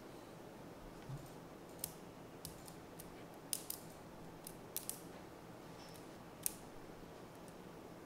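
Small magnetic balls clicking as clusters of a magnetic-ball figure are pulled apart and snapped back together by hand: a dozen or so light, sharp clicks at irregular intervals.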